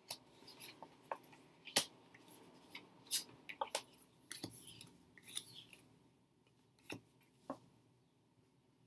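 Five Cent Tarot cards being dealt one after another onto a wooden table: a quick run of light snaps and slides of card on wood, thinning out after about six seconds.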